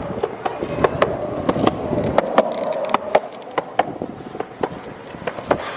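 Skateboard rolling along a concrete sidewalk: a steady rolling rumble from the wheels, broken by frequent sharp clacks as they pass over the sidewalk joints.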